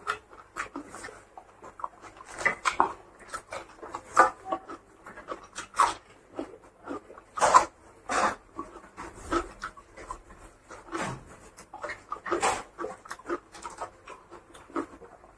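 Close-miked eating sounds of a man eating rice and curry with his hand: wet chewing and lip-smacking in irregular smacks every fraction of a second, with his fingers squishing and gathering rice. The loudest smacks come a little past seven seconds in and again at about twelve and a half seconds.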